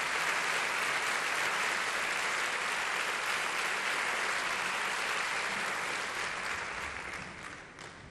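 Audience applauding, a steady wash of clapping that fades away near the end.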